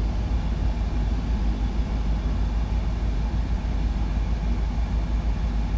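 2004 Dodge Ram 2500 cab HVAC blower fan running steadily: a constant rumble and rush of air from the vents.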